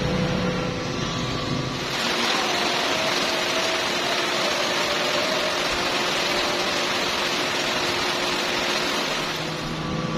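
Steady whirring hiss of a TIG/MMA 200 inverter welding machine's cooling fan, heard close up. Before that, for about the first two seconds, there is a lower steady hum.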